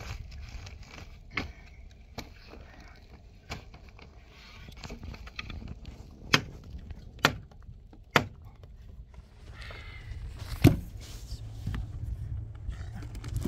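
Wooden pole and boards knocking against each other and the ground as they are set in place: about seven sharp knocks spread out, three of them close together in the middle, the loudest and heaviest a dull thud near the end, over a steady low rumble.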